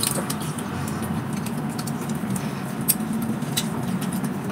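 Close-up chewing and mouth sounds of someone eating rice and stew by hand, with a few sharp clicks over a low steady hum.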